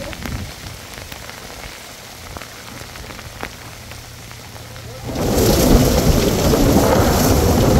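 Rain falling with scattered faint drop ticks, then about five seconds in a sudden loud rumble of thunder over heavy rain that continues to the end.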